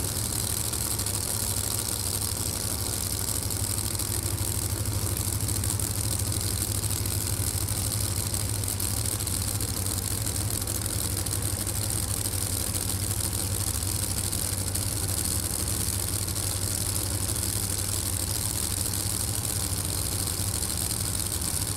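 Top Door Slammer drag cars' engines running in a steady low drone, with no clear rise or fall in level.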